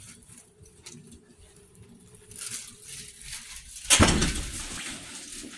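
Soft rustling and handling noise from a phone being carried, then one sudden loud thump about four seconds in that trails off into a hiss.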